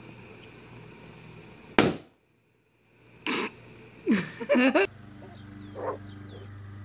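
Rubber party balloon bursting under a rabbit lying on it: one sharp bang about two seconds in. A person's voice cries out a couple of seconds later.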